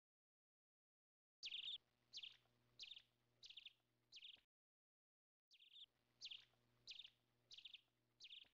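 Short high-pitched chirps come in two runs of five, about one and a half a second, over a faint steady hum. Dead silence comes before the first run and between the two runs.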